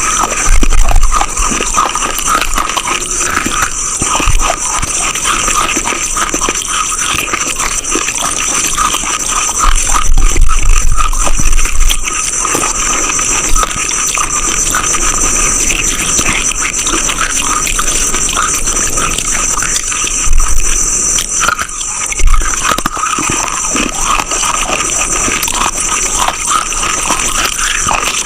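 Close-miked crunching and chewing of hard chalk-like clay: a dense run of crackling snaps as pieces are bitten and ground between the teeth, with heavier thuds of bites a few times.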